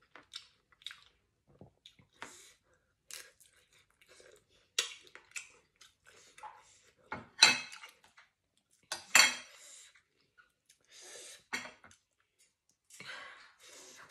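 A metal spoon clinking and scraping on a ceramic plate, with chewing and mouth sounds between; two sharp, much louder clinks come a little after the middle, under two seconds apart.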